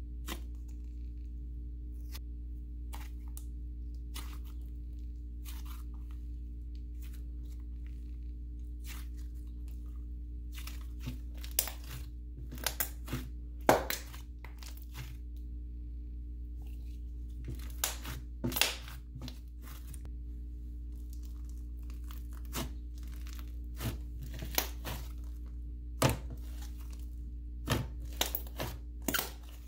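Hands stretching, poking and squeezing a soft, clay-based butter slime, making irregular crackling pops and squishes. They are sparse at first and grow more frequent about ten seconds in, with a few louder pops.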